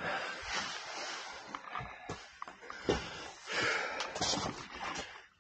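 A person breathing hard while crawling through a tight rock squeeze, with scuffing on rock and a few short sharp knocks.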